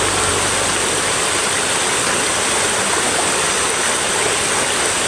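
Small waterfall's water flowing strongly in a steady, even rush.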